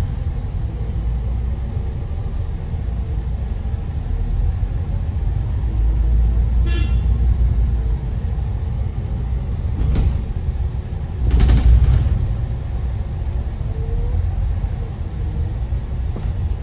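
Steady low rumble of a double-decker bus heard from inside as it drives slowly. About seven seconds in there is a brief high beep, and later two short rushing noise bursts.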